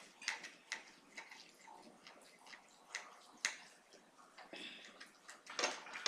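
Knife and fork clicking and scraping against a plate while cutting a ribeye steak: a string of irregular sharp clicks, with a short scrape about two-thirds of the way through.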